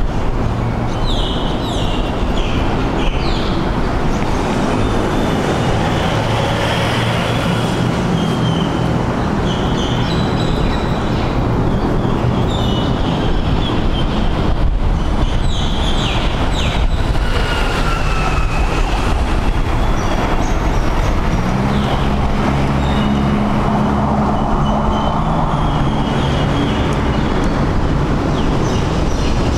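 Steady low rumble of nearby traffic, with short high squeaks and chirps repeating over it. An engine-like hum joins the rumble about two-thirds of the way in.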